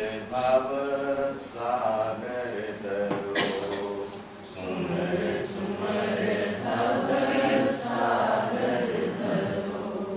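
A group of voices chanting a devotional chant together, with a short pause about four seconds in.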